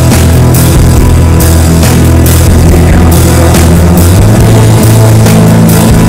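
Shoegaze rock song: a loud, dense wall of guitars over bass and a drum kit keeping a steady beat, the bass moving up to a higher note about four seconds in.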